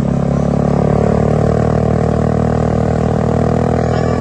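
Bus diesel engine running at a steady speed.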